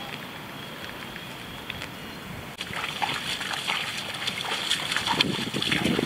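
Water splashing and sloshing: a faint steady hiss that turns abruptly louder about two and a half seconds in, thick with small splashes and clicks.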